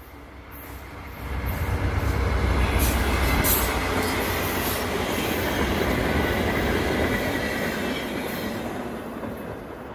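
GE P42DC diesel locomotive, with its 16-cylinder engine, passing close by at speed with a passenger train. The engine's low rumble swells in about a second in and is loudest for the next few seconds. Then the wheel and rail noise of the passing coaches slowly fades as the train moves away.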